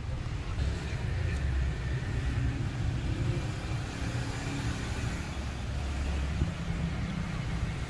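Low, steady rumbling background noise.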